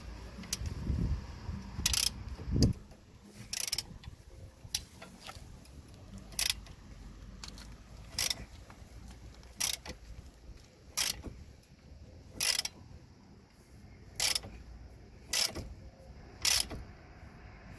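Socket ratchet clicking in short bursts, one about every second and a half, some eleven strokes in all, as it tightens a brake caliper bolt. A few low knocks come in the first few seconds.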